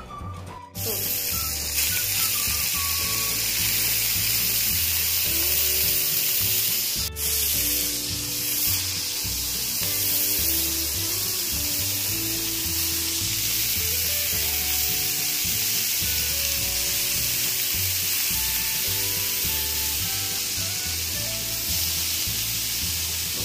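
Marinated beef strips sizzling in hot olive oil on a flat tawa griddle as they are laid down one by one. The steady sizzle starts about a second in. Background music with held notes and a steady beat plays over it.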